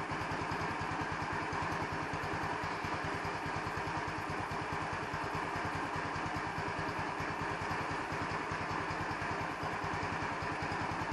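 150cc Chinese scooter's single-cylinder four-stroke engine idling cold, a steady run of firing pulses that the owner hears as hesitating. He suspects the idle mixture is not set properly.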